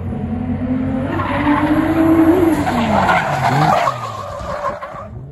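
A car drifting past at high speed, its tyres screeching for about four seconds before the screech cuts off abruptly near the end. Under the screech the engine note climbs and then drops as the car goes by.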